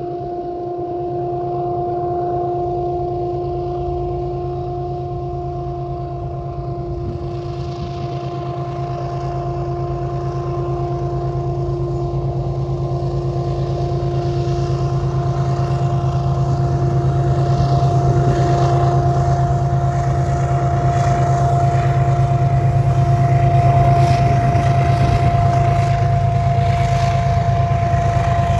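Diesel-electric freight locomotives working under power as the train approaches: a steady engine drone that grows gradually louder, with a constant whine over it.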